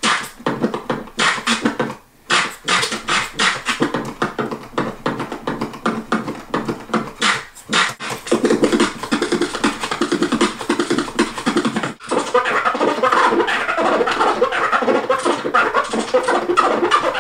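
Vinyl record being scratched by hand on a Numark PT01 portable turntable whose platter is held steady by a Skratch Steady stabilizer ring, in rapid choppy cuts with brief gaps. About twelve seconds in, the cuts become denser and more continuous.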